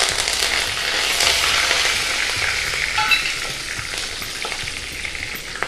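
Green chillies and curry leaves sizzling as they go into a hot oil-and-ghee tempering of mustard seeds and browned dals while it is stirred. The sizzle is loudest in the first couple of seconds, then slowly dies down.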